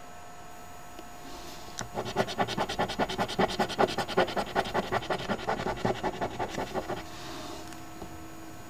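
A coin scratching the latex coating off an instant lottery scratch ticket: a run of rapid back-and-forth scrapes that starts about two seconds in and stops about seven seconds in. A faint steady hum sits before and after the scrapes.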